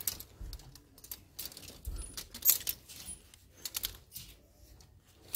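Clear plastic clothes hangers with metal hooks clicking and scraping along a chrome clothing rack as garments are pushed aside one by one. A run of irregular light clicks, with a sharper click near the end.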